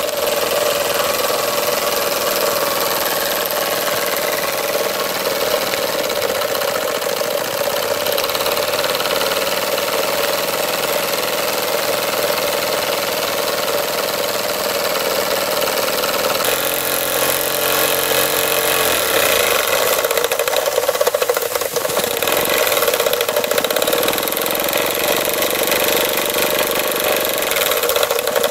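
DM-1 model steam engine running steadily and driving a small dynamo: a continuous fast mechanical running noise with a steady buzzing tone and a hiss. The hiss grows stronger a little past halfway.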